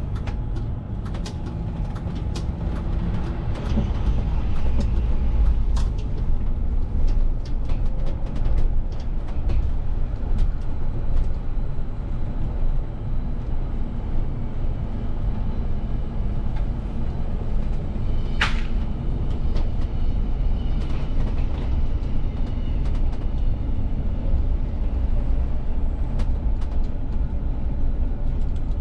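VDL city bus driving, heard from inside the driver's cab: a steady low rumble of running and road noise, with scattered small clicks and rattles. About two-thirds of the way through there is one brief sharp squeal.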